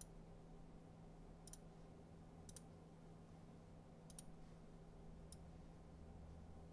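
Faint computer mouse clicks, about five spread unevenly over several seconds, over a low steady hum.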